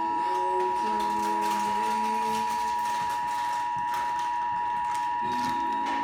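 Emergency Alert System attention signal: the two-tone alert, about 853 and 960 Hz sounded together, held steady with music faintly underneath. It signals that an emergency alert, here a flash flood warning, is about to be read.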